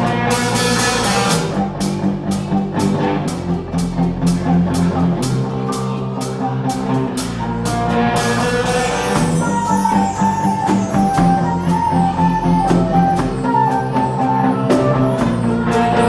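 Rock music played by a band: guitar over bass and drums with a steady beat, and a higher melody line coming in about halfway through.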